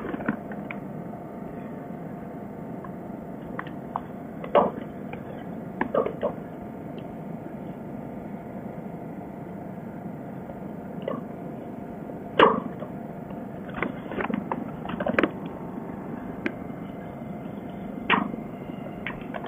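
Irregular sharp knocks and clicks of a metal hand tool striking and prying at a mast gate's hinge, which is stuck fast with epoxy gummed into it. The knocks come singly, a few seconds apart, the loudest about two-thirds of the way through.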